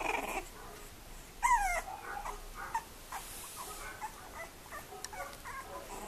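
Young bulldog puppies whimpering with small high squeaks. One louder whine about one and a half seconds in drops in pitch.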